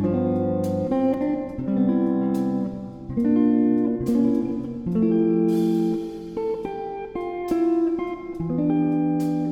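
Background music: a gentle plucked-guitar tune, its notes and chords changing every second or so.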